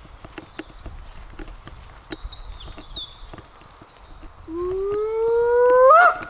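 A songbird sings in fast high trills over the crackle of a campfire. Near the end, a loud whistle-like tone comes in, rises slowly in pitch, then sweeps up sharply and cuts off.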